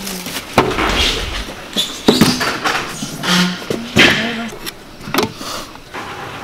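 Irregular knocks, clatter and rustling of food being handled: plastic bags crinkling and stainless steel trays being moved about.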